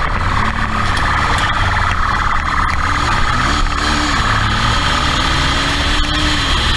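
Motorcycle engine running while riding, heard from the bike's own helmet camera, its pitch rising and falling briefly around the middle as the throttle is worked.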